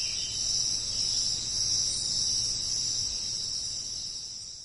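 Steady, high-pitched chorus of forest insects with a faint low rumble beneath; it fades near the end.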